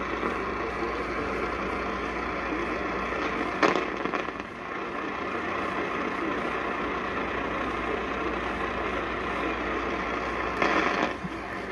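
Steady radio static hiss from a weather radio receiver on a weak signal, with two brief louder crackles about four seconds in and near the end.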